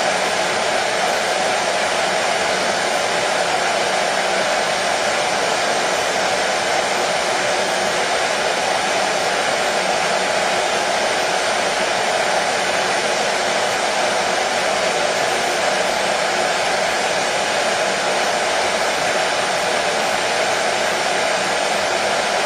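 Hair dryer running steadily, a constant whooshing hum with no change in speed, played continuously as soothing white noise for a colicky baby.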